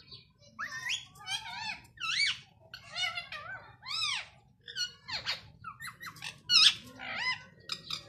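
Rose-ringed (ringneck) parakeet calling: a quick run of shrill squawks and chatter, each call rising and falling in pitch, starting about half a second in and loudest about two-thirds of the way through.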